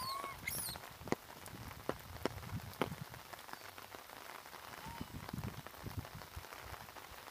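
Irregular sharp taps and drips of falling water drops on a wet surface, with a short high-pitched call right at the start.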